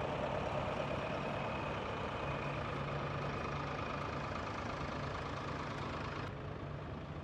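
Fendt Farmer 309 LS tractor's diesel engine running steadily while its reversible plough is turned over on the hydraulics. The higher part of the sound eases off slightly about six seconds in.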